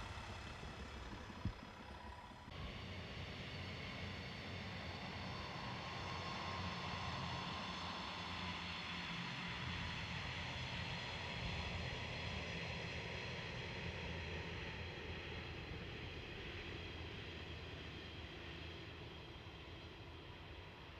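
JR East KiHa 110 series diesel railcars passing at a distance. The engine and rail noise is a steady drone that swells to a peak around the middle and slowly fades as the train draws away. A short click sounds about a second and a half in.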